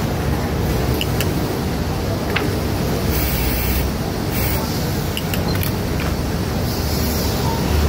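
Steady machine hum and hiss of a garment workshop, with a few light clicks and short bursts of hiss about three seconds in and again near the end.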